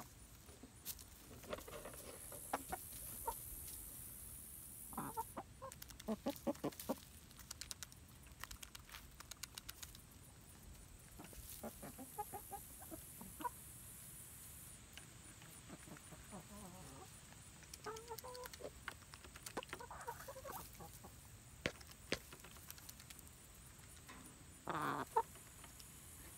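Young Buff Orpington chickens clucking softly now and then, with scattered light taps and a louder call near the end.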